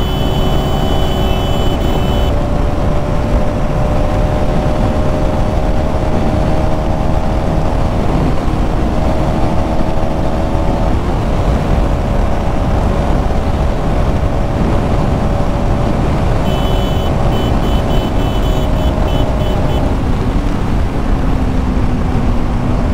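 Motorcycle engine running at a steady road speed under heavy wind rush, its note drifting slowly lower with a change about eleven seconds in.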